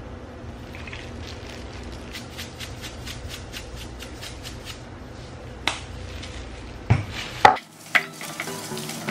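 A salt shaker shaken over raw chicken feet in a glass bowl, a quick rattle of about four shakes a second, over a steady low hum. Near the end come a few sharp knocks, the hum cuts off, and background music begins.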